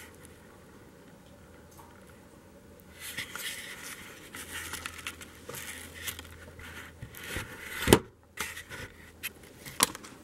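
Handling noise of a handheld camcorder as it is carried and set down: rustling and scraping against the microphone from about three seconds in, a loud thump about eight seconds in, and a sharp knock near the end.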